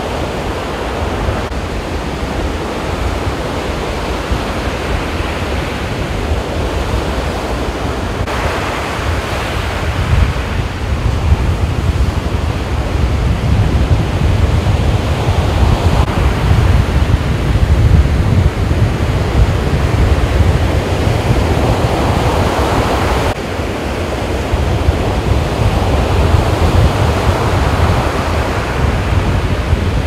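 Rough sea surf breaking on a beach, a steady roar that swells and ebbs as the waves come in, with wind rumbling on the microphone.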